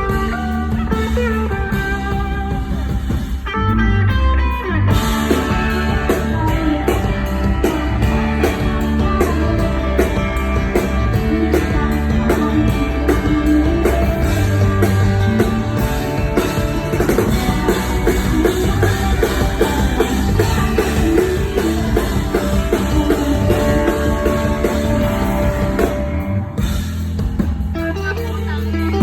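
Live rock band playing, with guitars over a drum kit; no clear vocal line, an instrumental passage.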